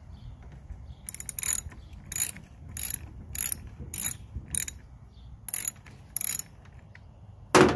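Socket ratchet wrench clicking in short strokes, about nine bursts, as a lawn mower's rear wheel fastener is undone. A single loud knock comes near the end.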